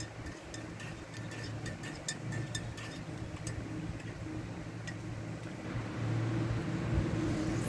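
Steady low mechanical hum, louder from about six seconds in, with a few faint light clicks in the first few seconds.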